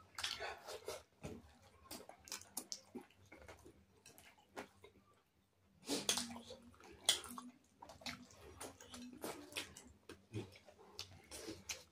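Close-up eating sounds of people eating by hand: soft wet chewing and lip-smacking with scattered quick clicks, pausing briefly in the middle.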